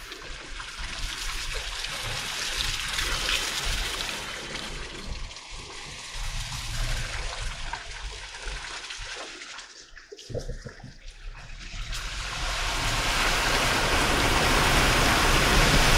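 Dacia Duster SUV driving through wet mud and puddles, with water splashing and rushing from the tyres against the underside over a low engine rumble. It grows louder over the last few seconds.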